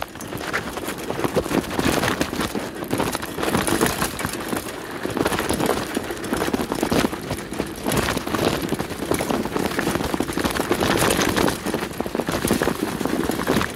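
Mountain bike rolling fast over a dirt trail strewn with leaves: tyres crunching over the ground and the bike rattling continuously over the bumps.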